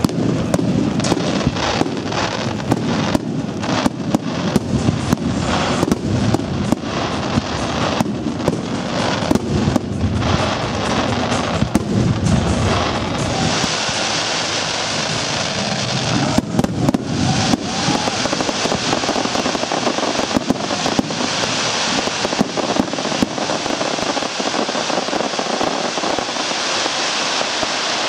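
Fireworks display: a rapid run of aerial shell bursts with heavy bangs for about the first half, giving way to a steady crackling hiss with only a few scattered bangs.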